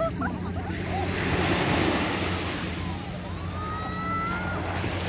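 Small waves washing up onto a sandy beach, a steady hiss of surf.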